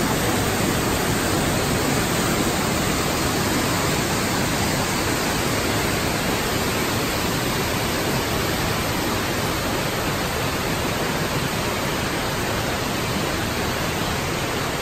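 A mountain torrent rushing and cascading through a narrow rock gorge: a loud, steady, even rush of water.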